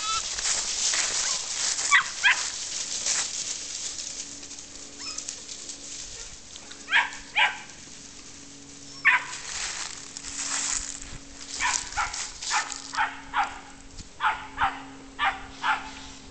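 Hanging Tree Cowdog puppies barking in short, sharp barks. There are a few scattered barks at first, then a quick run of about two a second in the last five seconds: the puppies are baying goats, holding them in place.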